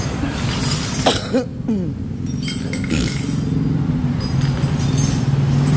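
Honda CBR1000RR inline-four engine idling steadily through a re-cored aftermarket racing exhaust. A couple of brief louder sounds come about a second in.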